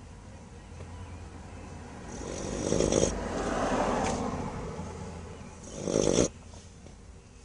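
Bluetick coonhound snoring in its sleep, with two loud snoring breaths about three seconds apart, each building and then cutting off abruptly, over softer steady breathing.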